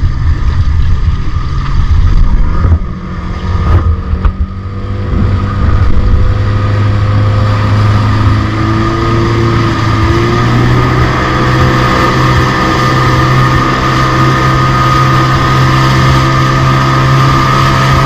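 A small boat's motor running steadily while the boat cruises on autopilot. Wind buffets the microphone during roughly the first five seconds.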